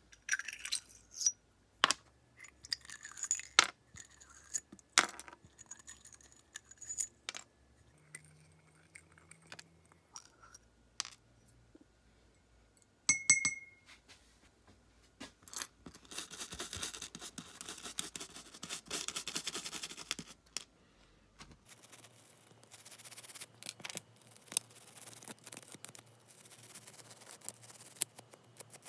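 Small metal parts of a vintage automatic lighter being handled: scattered clicks and clinks, one short ringing ping about halfway through, then two long stretches of scraping or scrubbing on the metal.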